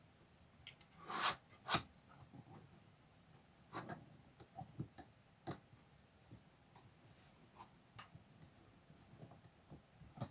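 Curtain rod hardware being handled: a brief scrape about a second in, then scattered light clicks and knocks.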